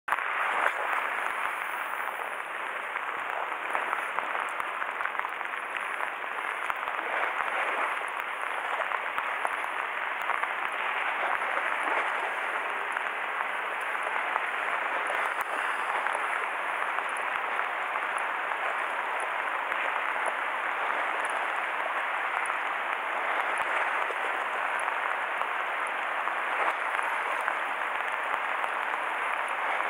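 Heavy rain falling steadily, a dense even hiss of countless small drop hits.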